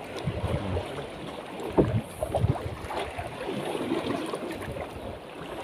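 Choppy sea water slapping and sloshing irregularly against the side of a small wooden fishing boat, with wind on the microphone.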